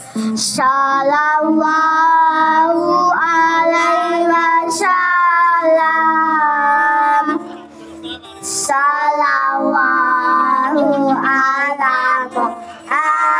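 A child singing a sholawat, an Islamic devotional song praising the Prophet Muhammad, with long held notes that slide between pitches. There are short breaks for breath about eight seconds in and again near the end.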